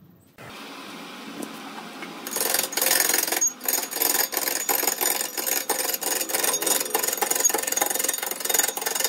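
Large wood lathe starting up, then a long-handled turning tool cutting into a big, rough burl log spinning on it: loud scraping with rapid knocks as the tool meets the uneven wood, breaking off briefly about three and a half seconds in.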